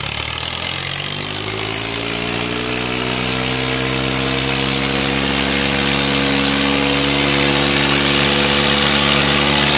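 Swaraj 855 and Sonalika DI 55 tractor diesel engines straining at full load in a tractor tug-of-war. The engine note climbs in pitch over the first four or five seconds, then holds steady while growing louder.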